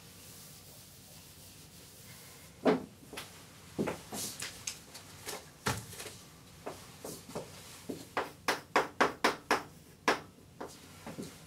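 Footsteps across a hard floor, then chalk tapping and scraping on a blackboard in a quick run of sharp ticks, about four a second, as a heading is written.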